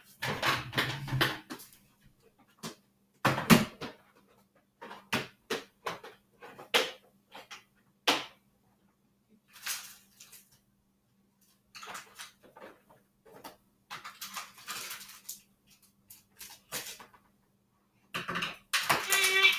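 Objects being handled and searched through: irregular knocks and clicks with some rustling, and a denser clatter with a brief squeak near the end.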